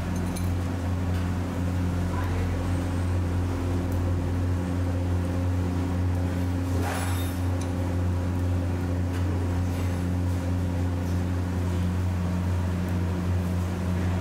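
Steady low mechanical hum, a deep drone with a couple of fainter steady tones above it, with a brief scrape about seven seconds in.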